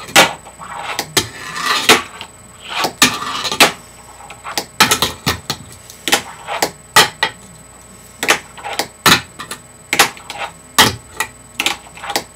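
Fingerboard tricks on a small wooden box ramp with metal coping: irregular sharp clacks of the board popping and landing on the wood, with two short grinding scrapes along the coping in the first few seconds.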